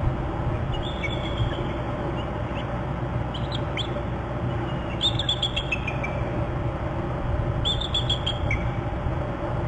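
Male bald eagle giving alert calls: four bursts of high, chirping notes that step down in pitch, the strongest about halfway through. A steady low rumble runs underneath.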